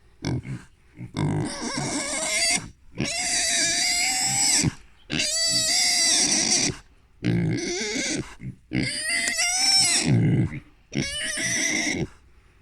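Piglet screaming in a run of long, high-pitched squeals, one after another with short breaks for breath, as it is restrained for removal of its nose ring: squeals of fright and protest at being held.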